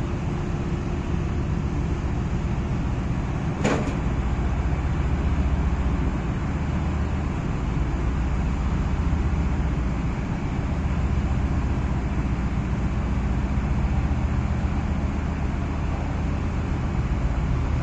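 Tugboat's diesel engine running steadily with a deep, even drone. A single sharp knock sounds about four seconds in.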